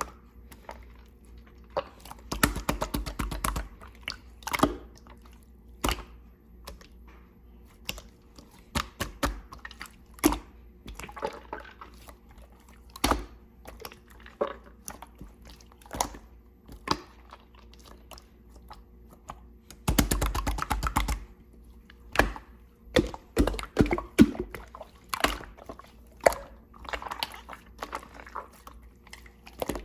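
Slime being pressed, stretched and poked by hand: sticky clicks and small air-bubble pops, with two runs of rapid crackling, about two seconds in and again about twenty seconds in.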